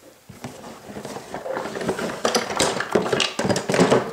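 Rummaging through a box of wooden toy railway track and pieces: wooden pieces clattering and knocking together with rustling, building up and loudest near the end.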